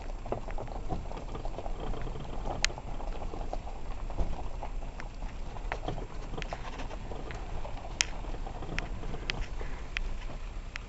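Stones and gravel crunching and clicking under the tyres of a VW T3 Syncro van crawling slowly over a rocky track, over the low rumble of its engine. A few sharper stone clicks stand out among the crackle.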